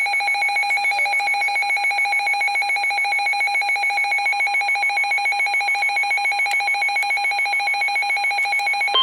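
Emergency Alert System alert tone: a steady, loud electronic tone that pulses rapidly at several beats a second and is held unbroken, signalling the start of a warning broadcast.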